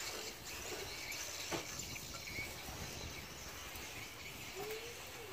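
Outdoor background noise with faint bird chirps and one sharp click about a second and a half in; near the end a low voice-like tone rises and falls.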